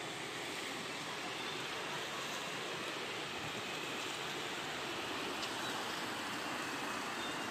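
Steady rushing of fast-flowing brown floodwater running down a flooded street.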